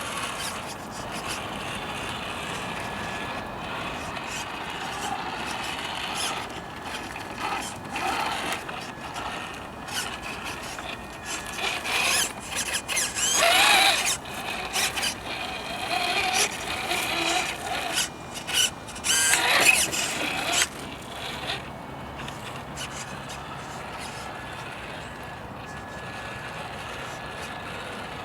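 A small 3D-printed RC crawler's electric motor and gearbox running steadily. Through the middle stretch come irregular scrapes, clicks and short squeals that rise and fall in pitch, loudest twice, before the steady running returns.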